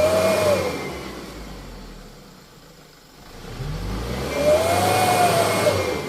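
Loaded dump truck's engine revving up and easing off twice. The first swell fades within the first second or two and the second builds about three and a half seconds in. The truck is bogged in mud and straining to climb out.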